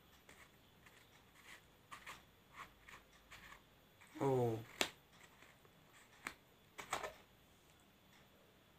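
Faint small clicks and taps of a hand working the screw cap off a plastic drink bottle, with a short vocal sound about four seconds in.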